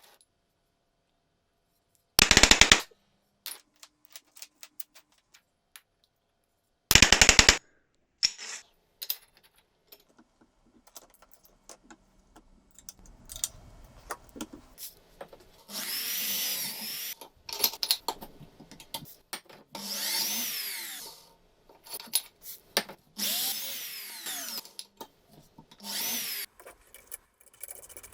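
Power tool run in short bursts of about a second or two, with knocks and clatter of metal parts between the runs.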